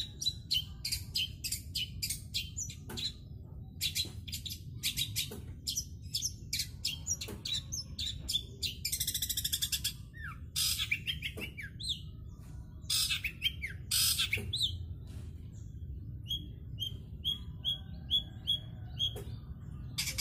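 Caged long-tailed shrike calling in short, harsh chirps and squawks, with a buzzy rattle about nine seconds in and a run of evenly spaced short pips near the end. This is the repetitive 'toet-toet' calling of a shrike that will not sing its full song.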